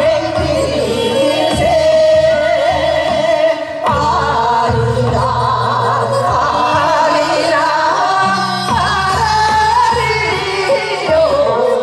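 A group of women singing a Korean folk song in unison with vibrato, amplified through a PA, over a backing track with a steady low bass beat.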